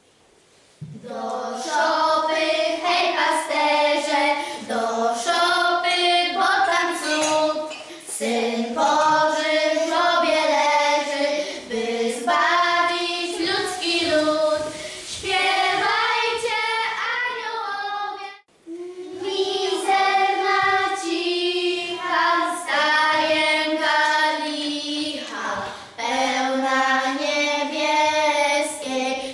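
Children's choir singing a Polish Christmas carol, starting about a second in, with a short pause about two-thirds of the way through.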